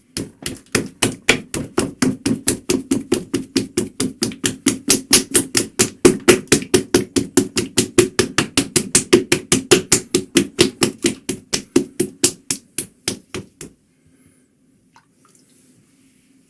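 Rapid, evenly spaced knocking, about five knocks a second, that stops suddenly near the end, over a faint steady hum.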